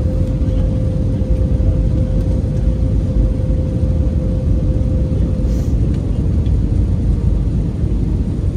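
Steady low rumble of a jet airliner's engines and airflow, heard from inside the cabin, with a steady hum that stops about five and a half seconds in.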